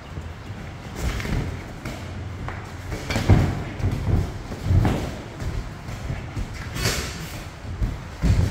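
Boxing gloves thudding irregularly as two boxers spar, with about half a dozen hard thuds a second or two apart.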